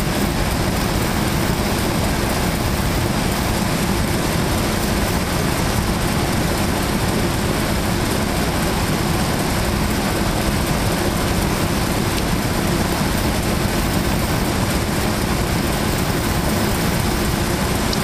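Ram 1500 pickup's engine idling, heard up close in the engine bay: a steady, unchanging running noise with a low hum.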